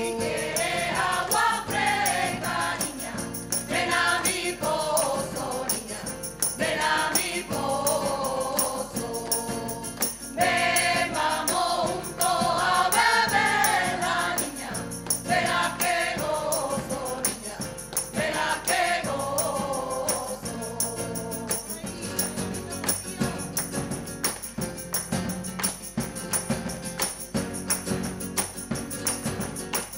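Women's choir singing an Andalusian folk song in unison, backed by Spanish guitar, a jingling tambourine and rhythmic hand clapping. About two-thirds of the way through the voices drop out, and the guitar, tambourine and clapping carry on.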